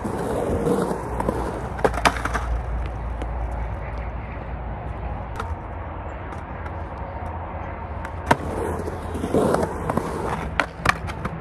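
Skateboard on 92A wheels rolling over rough concrete transition, its rumble swelling near the start and again about nine seconds in, with several sharp clacks of the board against the ramp. A steady low rumble of highway traffic runs underneath.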